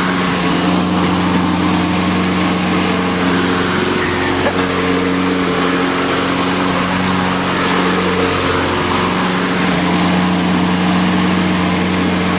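Toro self-propelled walk-behind lawn mower's small engine running steadily with a constant drone, its control bail duct-taped down so it runs and drives with no one holding it.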